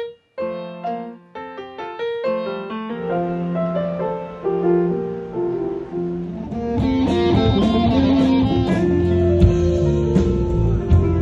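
Piano playing a melody in separate notes, then a fuller accompaniment after about three seconds. About seven seconds in, a band with drum kit, bass and guitar comes in and the music gets louder.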